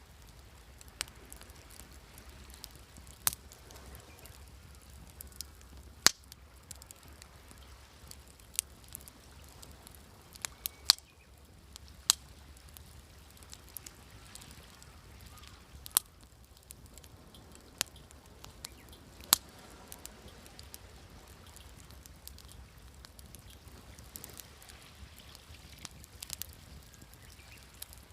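Wood campfire crackling, with irregular sharp pops, a dozen or so standing out, over a faint steady low rumble.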